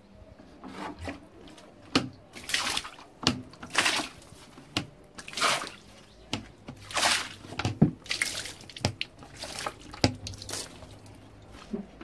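Water splashing and swishing in short, irregular strokes about a second apart, as a wet tiled floor is washed down.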